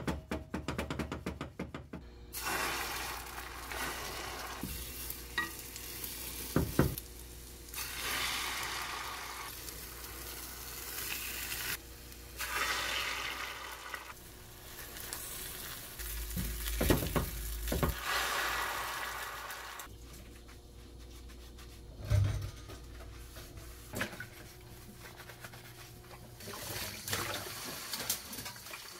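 Beaten egg sizzling in stretches in an oiled rectangular egg-roll pan, with a wooden spoon and ladle scraping and stirring. Near the end, tap water runs into a bowl in a steel sink.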